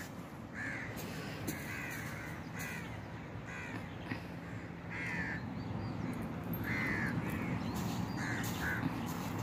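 Crows cawing: a dozen or so short caws, irregularly spaced, over a steady background hiss.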